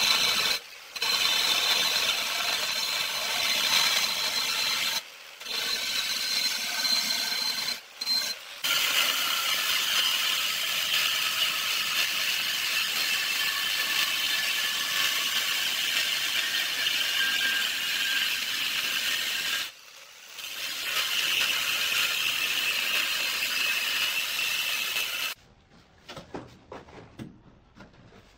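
Handheld angle grinder with a diamond blade cutting ceramic tile: a loud steady high whine, stopping briefly four times between cuts and cutting off near the end. Quieter scattered knocks and handling sounds follow as a tile is set.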